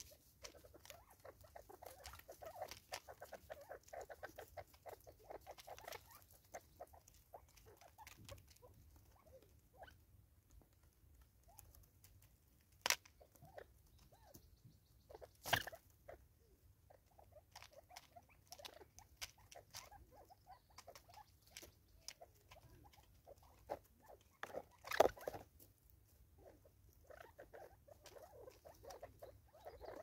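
Spurfowl beaks pecking fast at seed in a plastic bottle feeder, a faint quick patter of taps, with a few louder sharp knocks.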